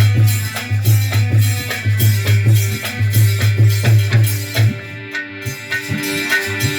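Folk band music between sung verses: a deep drum beat in a steady rhythm with a shaker rattling and sustained melody notes over it. The deep beat stops about two-thirds of the way through, leaving the shaker and melody.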